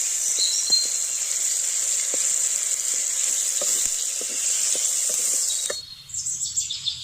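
Food sizzling in hot oil, a steady hiss with scattered small pops, cutting off abruptly about six seconds in.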